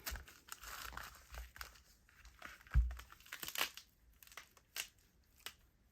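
Velcro hook-and-loop strips on a leather belt strap being pressed together and fastened, a crackling rasp, with rustling and clicking as the heavy belt is handled and a dull thump a little under three seconds in.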